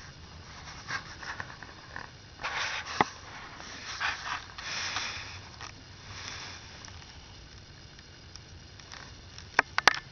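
Sleeping cat snoring: a few airy, breathy swells in the first seven seconds. There are sharp clicks about three seconds in and twice near the end.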